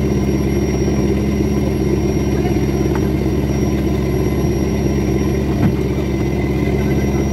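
Fishing trawler's inboard engine running steadily as the boat moves under way, a constant low drone. A single knock sounds about five and a half seconds in.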